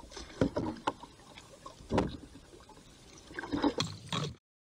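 Kayak paddle strokes splashing in shallow river water, three strokes about a second and a half apart. The sound cuts off abruptly near the end.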